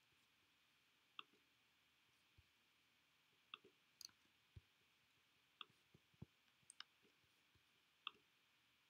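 Faint, irregular clicks from a computer mouse and keyboard, about nine spread over several seconds, against quiet room tone.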